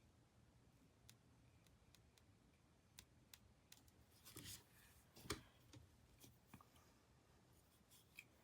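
Near silence with faint scattered clicks and taps of a paintbrush and painting things being handled, a short scrape a little past four seconds and the sharpest tap just after five seconds.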